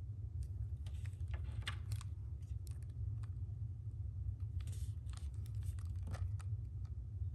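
Fingers handling and turning a plastic robot toy dog: light clicks and brief scrapes of skin on hard plastic, clustered about a second in and again near five and six seconds, over a steady low hum.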